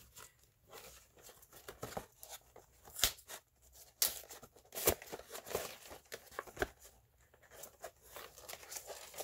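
Cardboard and plastic packaging of a Pokémon card collection box being handled and pulled open: irregular rustling, crinkling and tearing. Sharp snaps come about three, four and five seconds in.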